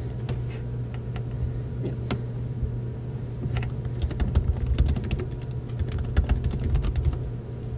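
Typing on a laptop keyboard: irregular key clicks, coming in a quicker run in the second half, over a steady low hum.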